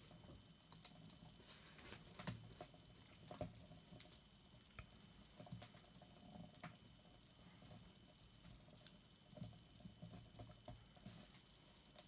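Faint handling noise from fingers working a small angled 13-pin GK cable connector: quiet scratches and small clicks of its plastic housing against the metal plug, with a sharper click about two seconds in and another at three and a half seconds.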